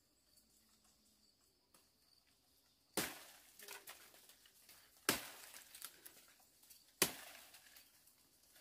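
Leafy twigs and branches being pulled and snapped by hand: three sharp cracks about two seconds apart, each followed by a short crackling rustle of leaves.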